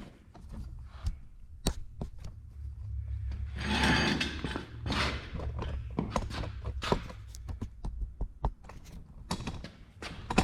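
Handling noise in a workshop: scattered knocks and clicks, with a rubbing scrape about four seconds in, over a low steady hum.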